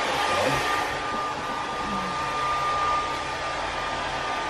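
Hand-held hair dryer running steadily: an even rush of air with a steady high whine from the motor.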